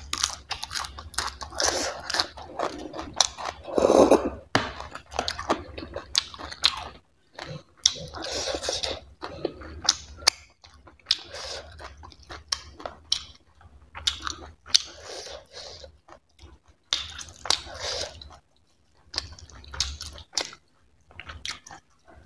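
A person chewing and biting close to a clip-on microphone, eating by hand: a raw spinach leaf first, then mouthfuls of barley dhido and chicken curry, in irregular runs of chewing with short clicks and brief pauses.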